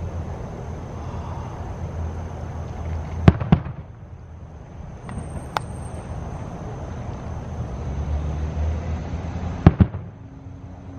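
Fireworks bursting: two sharp bangs in quick succession about three seconds in, a couple of fainter pops around five seconds, and another close pair of bangs near the end, over a steady low rumble.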